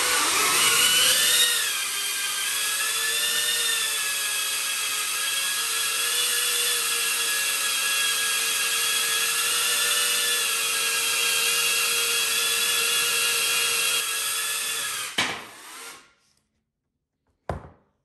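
Diatone Taycan 25 cinewhoop's brushless motors and ducted propellers spinning up with a rising whine, then running steadily with a loud, high-pitched whistling whine, before winding down and stopping about 15 seconds in. This is the stock duct setup without noise-reduction inserts, whose whistle the owner puts down to the wide gap between props and ducts and the extra holes in the ducts acting as whistles. A brief click comes near the end.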